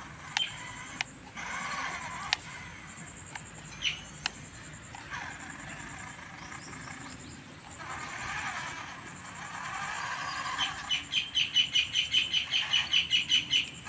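Birds chirping and calling, with scattered varied calls and a few sharp clicks. About three-quarters of the way in comes a fast, regular run of high, sharp chirps, about five or six a second, which is the loudest part.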